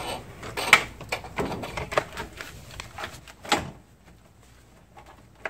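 A car battery being set down into a plastic battery box: a run of knocks and scrapes of the plastic case against the box, the loudest about a second in and another about three and a half seconds in, then only faint handling.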